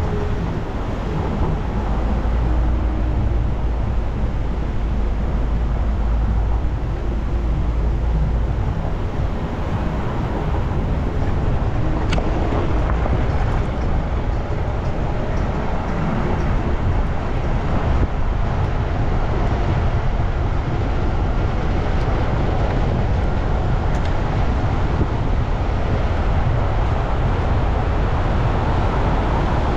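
A vehicle driving: a steady engine and road rumble with wind on the microphone, and a couple of brief clicks along the way.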